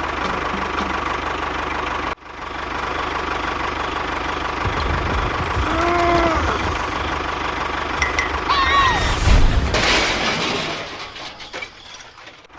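A motor or engine running steadily, cut off sharply about two seconds in and then picking up again, with a few short rising-and-falling tones around the middle before it fades near the end.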